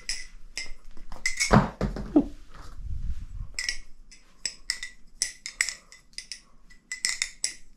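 Bbbarfly Barracuda V2 balisong trainer being flipped: the handles and latch clack and clink against each other in quick, irregular rhythm, each click ringing briefly. About a second and a half in comes a louder knock with a low thud.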